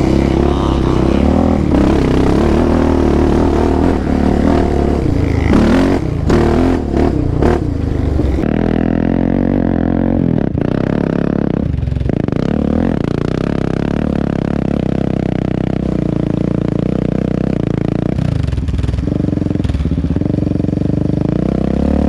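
Off-road engines running on a rocky dirt trail: first the Yamaha Raptor 700 ATV's single-cylinder engine under way, with gravel clattering and scraping underneath. After a cut about 8 seconds in, engine noise continues as a dirt bike rides up the trail and passes close by near the end.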